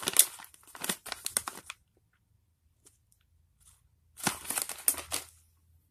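A plastic snack bag of peanut mini bars crinkling as it is handled and turned over, in two bursts: over the first couple of seconds and again about four seconds in.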